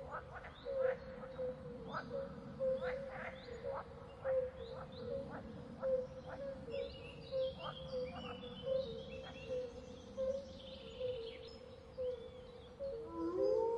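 Wild chorus of many short, rapid chirping calls over a steady droning tone. Near the end a wolf's howl starts with a rising pitch and settles into a long held note.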